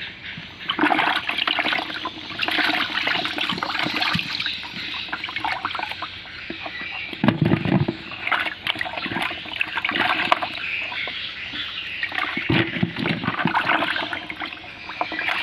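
Water splashing and sloshing in a bucket as a hand reaches in and stirs about to catch live papuyu (climbing perch), in uneven surges, with a couple of heavier, lower sloshes about halfway and near the end.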